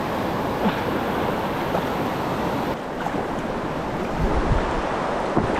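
Rushing water of river rapids at a small waterfall, a steady hiss, running high, with wind buffeting the microphone.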